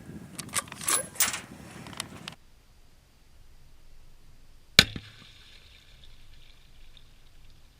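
A few sharp clicks and knocks, then about five seconds in a single loud rifle shot, followed by a ringing tail that fades over a couple of seconds.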